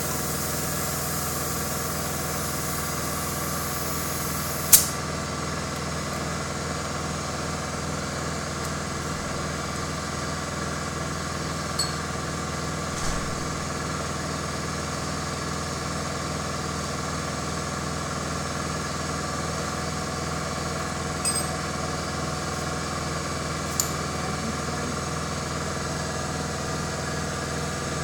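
A compressed-air paint spray gun hisses for the first few seconds, then cuts off with a sharp click as the trigger is let go. A steady mechanical hum runs underneath throughout, with a few light clicks later on.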